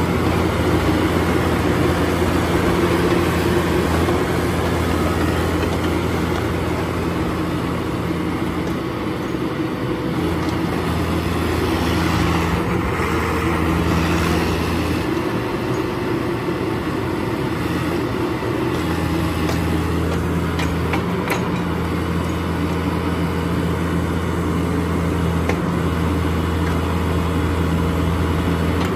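The diesel engine of a 2007 Bobcat 331 mini excavator running steadily while the machine is operated. Its note dips and recovers several times as the hydraulics take load, and there are a few light clicks in the second half.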